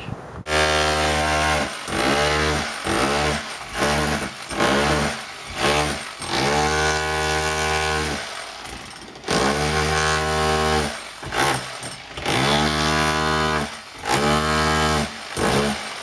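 Handheld electric chipping hammer breaking stucco off a wall, run in short on-off bursts, some brief and some about two seconds long, each winding up as the trigger is pulled.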